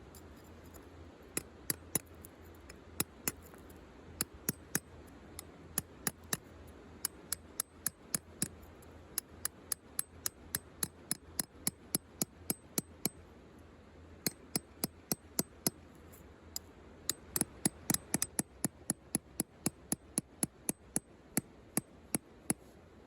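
Wood campfire crackling: a long run of sharp, irregular pops, two to four a second, thickest a little past the middle.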